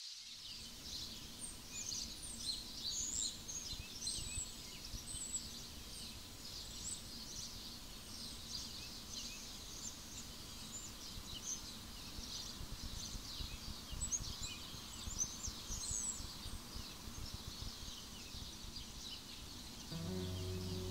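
Forest ambience with many small birds chirping and singing over one another, above a low, steady rumble. A low, sustained musical tone comes in near the end.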